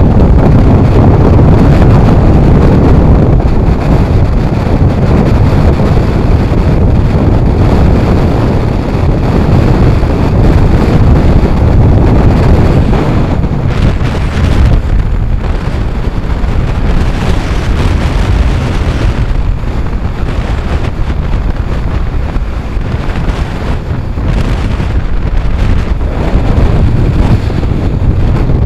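Loud gusting wind blasting the microphone on a ferry's open deck in a gale, with the rush of choppy sea breaking against the hull underneath.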